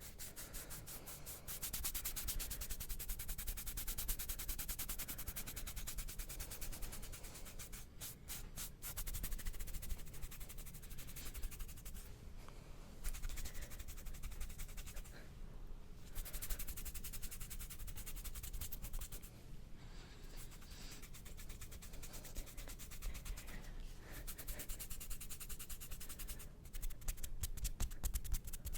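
Fast, aggressive hand sounds close to the microphone: skin rubbing and scratching in quick continuous strokes, with rapid flurries of short strokes about a third of the way in and near the end.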